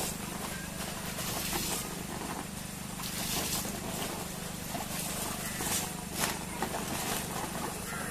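An elephant husking a coconut with its tusk and trunk: faint scattered crackles and snaps of fibrous husk tearing, over a steady low motor-like hum.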